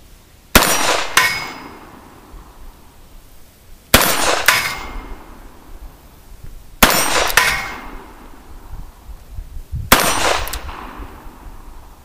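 Four revolver shots from a Colt Police Positive, a few seconds apart. Each shot is followed about half a second later by the clang of the bullet striking a steel plate target, which rings on briefly.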